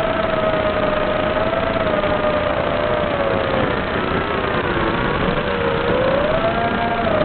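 Small FPV quadcopter's brushless motors whining over a steady hiss, the pitch wavering with throttle, dipping in the middle and rising again near the end.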